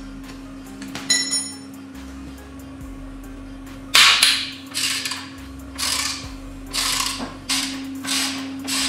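A single ringing metal clink about a second in, then from about four seconds in, repeated scraping strokes about one a second over a steady low hum.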